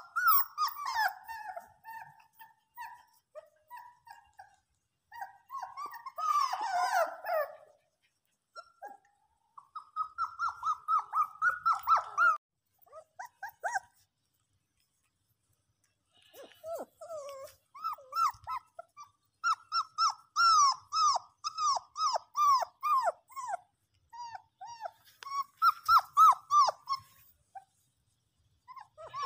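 Young puppies whining and yelping in quick runs of short, high, falling cries, several a second. The cries stop twice for a couple of seconds.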